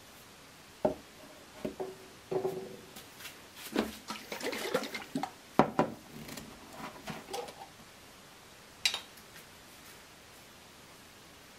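Hands handling a glass jar of water-based varnish on a workbench: a few knocks as things are set down, a stretch of liquid sloshing and rubbing as the jar is worked and its metal screw lid taken off, then a single sharp click near the end as the lid is put down.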